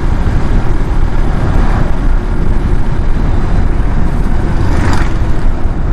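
Riding noise from a moving motorcycle, heard from the rider's position: a steady, dense low rumble of wind and road that covers the engine, with a brief swell of hiss near the end.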